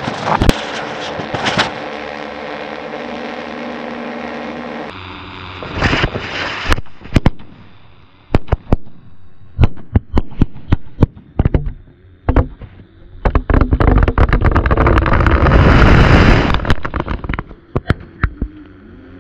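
Firecrackers packed inside a large plastic water jug going off. A steady sizzling spray of sparks for several seconds, then a string of sharp bangs. Near the end comes a few seconds of loud rushing blast, laced with more bangs, as the packed charge erupts out of the jug's neck.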